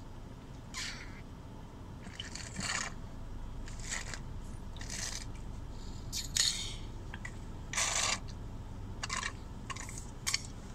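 Slurping the last of a juice box of apple juice through a straw: short, irregular sucking slurps about once a second as air is drawn in with the last drops.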